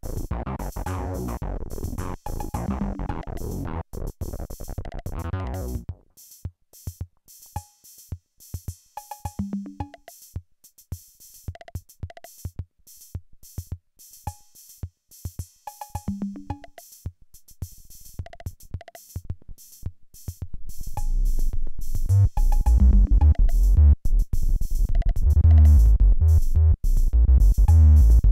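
Polivoks analogue synthesizer playing over a Roland CR-5000 drum machine beat as its knobs are turned. About six seconds in the synth drops out, leaving the drum machine's sparse hits on their own. Around twenty seconds in the synth comes back louder, with heavy bass.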